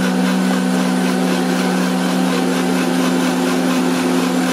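Electric blender motor running steadily while blending watermelon into juice: a constant hum with a noisy whir over it.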